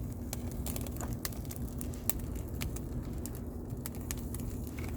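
Campfire crackling, with irregular sharp pops and snaps several times a second over a steady low rumble.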